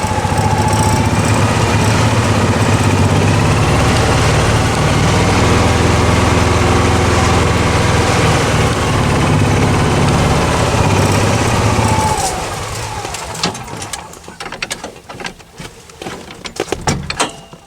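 Cushman utility vehicle's engine running steadily as it drives. About twelve seconds in, the engine sound falls away, leaving a few scattered knocks and rattles.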